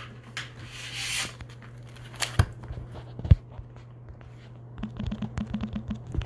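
Close handling sounds at a table: a short tearing rustle, then two sharp knocks, then a quick run of clicks and taps, over a steady low electrical hum.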